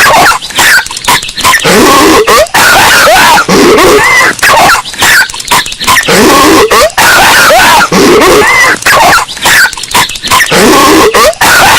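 Patrick Star, the cartoon starfish, in a raspy coughing fit, the short clip looped so that it repeats about every two and a half seconds. It is boosted until it clips into harsh distortion.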